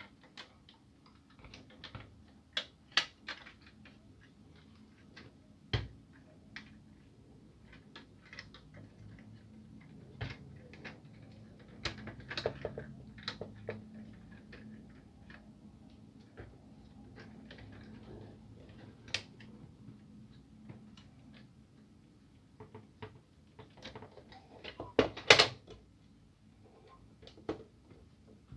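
Plastic clicks, taps and knocks from a Kyocera DK-150/DK-170 printer drum unit as its parts are handled and fitted together, scattered irregularly, with a quick run of loud clacks about 25 seconds in.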